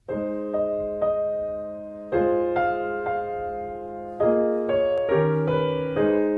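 Background piano music: soft sustained chords changing about every two seconds, with single notes struck in between.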